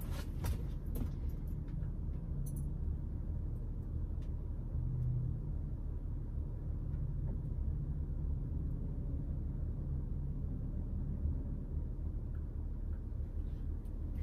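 A steady low rumble, with a few faint light clicks in the first couple of seconds.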